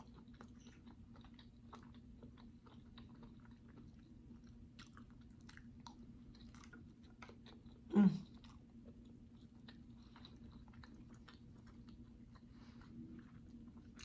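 Close-miked chewing of a mouthful of rice and shrimp masala: soft, wet mouth clicks and smacks, with one short, louder hum from the eater about eight seconds in.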